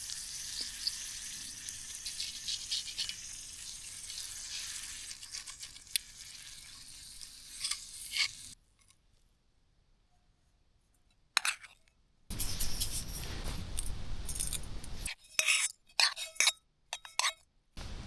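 Food sizzling in a hot pan, a steady hiss with fine crackles. After a cut there is a near-silent gap, then short clips of metal and glass utensil clinks and taps.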